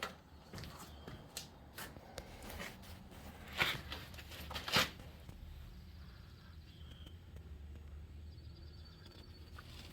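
Rustling and light clicks, as of things being handled close to the microphone, with two louder rustles about three and a half and five seconds in, then a low steady hum.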